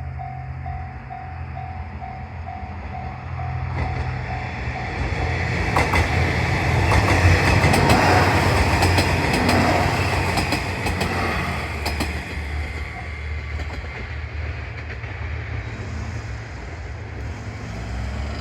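A three-car train of JR Shikoku 1200 and 1500 series diesel railcars passes the level crossing. The diesel drone and the rush of the train build up, with a run of wheel clicks over the rail joints at its loudest, then fade away. A level-crossing warning bell dings in a steady beat at first.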